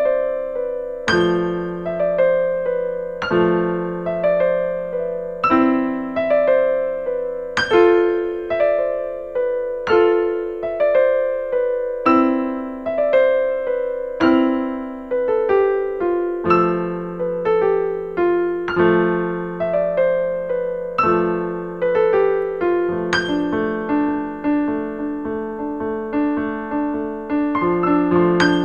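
Solo piano music at a slow, gentle pace, with a chord or note struck about every second and left to ring out, turning to quicker, busier notes near the end.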